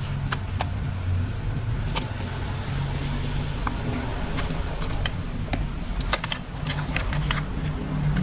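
Plastic toy train parts clicking and rattling as they are handled, many small irregular clicks over a steady low hum.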